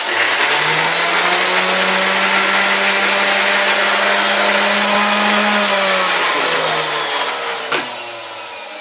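Electric orbital sander switched on and running at a steady pitch, then switched off about six seconds in and spinning down, its pitch falling. Its worn hook-and-loop pad no longer holds the sandpaper.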